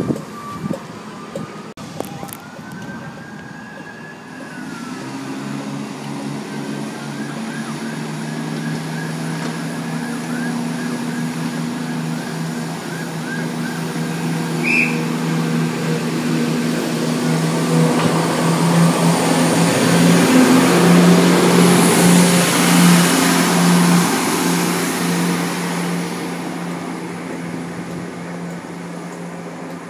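Class 170 Turbostar diesel multiple unit pulling away: its underfloor diesel engines drone steadily, growing louder as it accelerates and loudest about two-thirds of the way in, then fading as it draws away.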